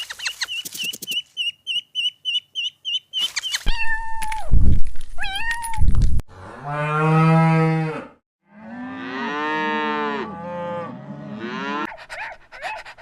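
A run of farm animal sounds: rapid high-pitched chirping for about three seconds, a short call, then two long cow moos, the second one rising and falling in pitch.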